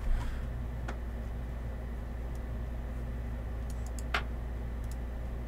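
A few soft computer mouse clicks, the sharpest about four seconds in, over a steady low hum.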